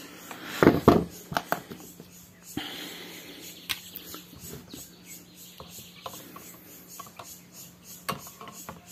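Knocks and taps of a digital kitchen scale and a fishing rod being handled on a tabletop, the loudest pair about a second in, over a faint low steady hum.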